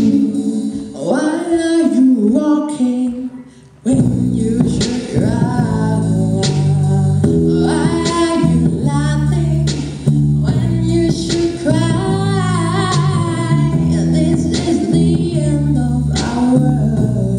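A woman singing into a microphone over an electric bass guitar. The low bass notes drop out near the start and the sound dips briefly, then the bass comes back in under the voice about four seconds in.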